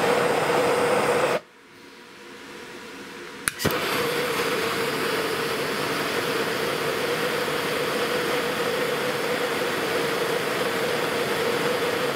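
Bernzomatic TS8000 trigger-start propane torch burning with a steady hiss and hum. It shuts off about a second and a half in, then comes back on about two seconds later with two quick clicks of its igniter, and burns steadily again.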